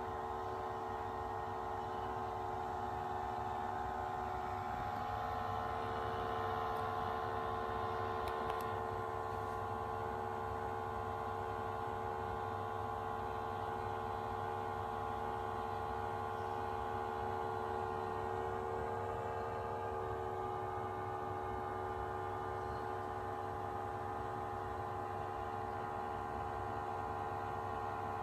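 OSIM OS-338 massager running with its heating function switched on, giving off a steady whine of several held tones over a low hum. It is the noisy abnormal sound that the owner reports whenever the warming is turned on.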